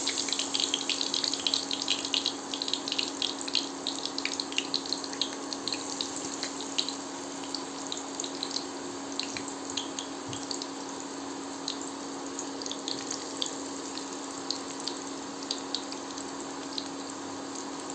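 Cornflour-coated soya chunks frying in hot oil: a steady sizzle with many sharp crackles and pops, busiest in the first few seconds and thinning out later. A steady low hum runs underneath.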